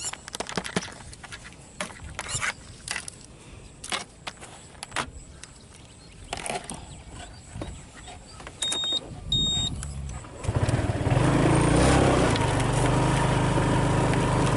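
Scattered clicks and rustles, with two short high beeps about nine seconds in. About ten and a half seconds in, a loud, steady engine sound starts and holds to the end.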